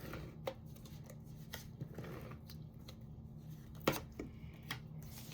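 Cardstock pieces handled and set down on a craft table: soft paper rustling with a few light taps, the sharpest about four seconds in, over a faint steady hum.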